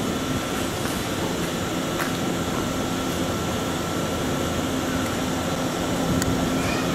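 Stationary electric train idling: a steady hum from its air-conditioning and auxiliary equipment, with a thin constant whine over it.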